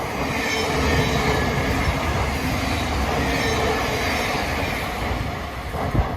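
Electric passenger train running through a station, a steady rumble of wheels on rail with a faint high-pitched wheel squeal over it, easing off near the end.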